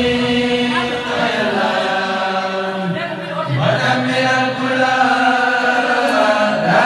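Group of men chanting a Mouride khassida together into microphones, holding long drawn-out notes, with a new phrase starting about halfway through.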